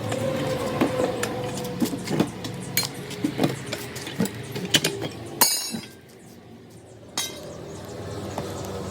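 Repeated metallic clinks and knocks of hand tools during tyre repair work, with two short sharper bursts about five and a half and seven seconds in.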